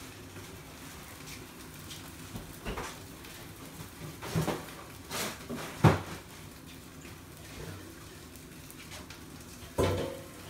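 Kitchen clatter: a few scattered knocks and clunks of things being handled and put away, the loudest about six seconds in, over a faint steady hum.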